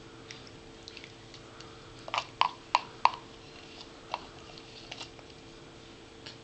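Feeding sounds as a baby is spoon-fed rice cereal: a scatter of small sharp clicks and taps, four louder ones in quick succession about two to three seconds in, over a faint steady hum.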